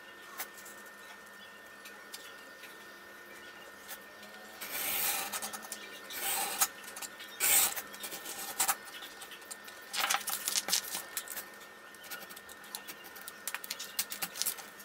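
Sandpaper being handled: rustling and scraping strokes as the sheet is scored with a utility knife along a wooden strip and folded by hand, with small clicks. The first few seconds are quiet, and the loudest stroke comes about seven and a half seconds in.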